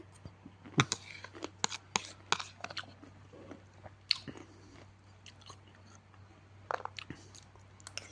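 A person chewing and biting crunchy food: irregular sharp crunches, some louder than others, over a faint steady low hum.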